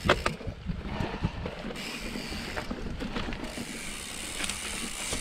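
Mountain bike rolling over a rough dirt and rock trail: tyre noise with small clicks and rattles from the bike, after a sharp knock right at the start.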